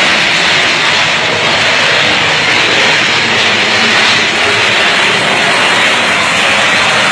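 Electrical short circuit arcing and burning at the overhead wires: a loud, steady hissing roar that does not let up.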